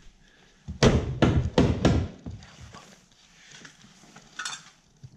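A hammer striking the Jeep Cherokee's fender sheet metal: four sharp blows about a third of a second apart, about a second in, followed by a few faint knocks. The metal is being knocked into shape to fit a snorkel.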